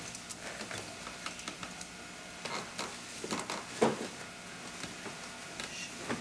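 Clothes and hangers being handled in a closet: irregular rustling and light clicks, with one sharper knock about four seconds in.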